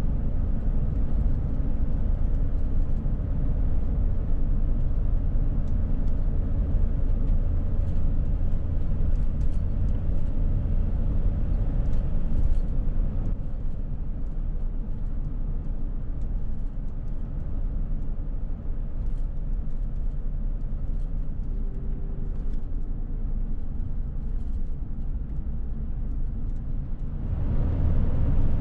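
Steady road and engine rumble of an RV driving at highway speed, heard from inside the cab.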